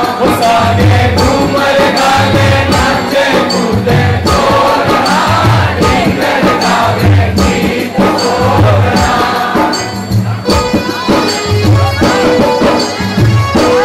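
A group of men singing a Hindu devotional bhajan to the Mother goddess together, over a steady low drum beat a little under once a second.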